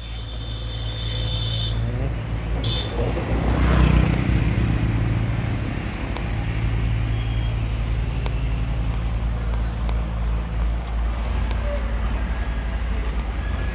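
A motorbike passing along the street, growing louder to a peak about four seconds in and then fading, over a steady low rumble.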